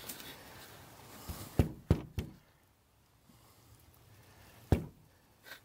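Boot tapped down on a wooden board: three knocks close together about a second and a half in, then one more near the end. The taps shake sand out through a hole worn in the boot's fabric toe.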